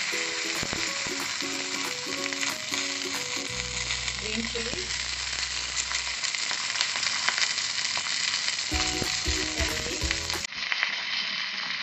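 Mustard seeds, cumin, chillies and curry leaves sizzling in hot oil in a kadai: a tadka (tempering) frying, a steady dense sizzle.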